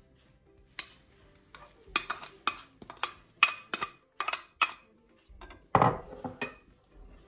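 A spatula scraping and knocking against a glass bowl and a ceramic bowl as chopped vegetables are tipped in: a string of short knocks, about two a second, with a louder clatter near the end.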